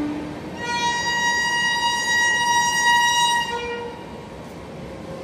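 Indian Railways locomotive horn: one long high-pitched blast of about three seconds that stops short, followed by a brief lower note, over the rumble of a passing train.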